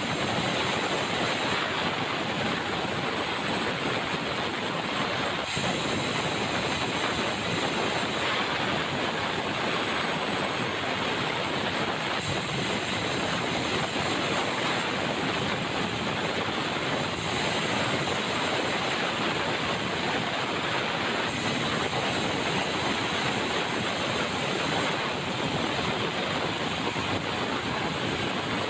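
Sawmill running, its saw cutting red meranti timber: a steady, dense, rushing noise whose high hiss shifts in strength every four to five seconds.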